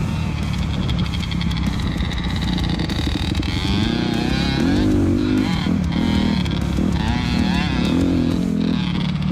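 Dirt bike engine running and revving, its pitch rising and falling again and again as the throttle is worked.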